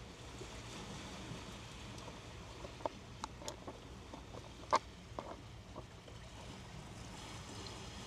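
Steady seaside background noise with a low rumble, and a handful of short, sharp clicks in the middle, one near the middle louder than the rest.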